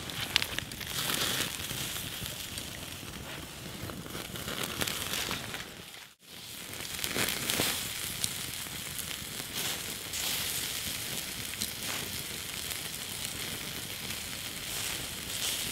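Bratwursts sizzling on a wire grill over campfire coals, with small crackles from the fire. The sound drops out briefly about six seconds in.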